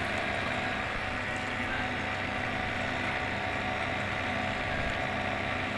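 Boat engine running with a steady, even drone.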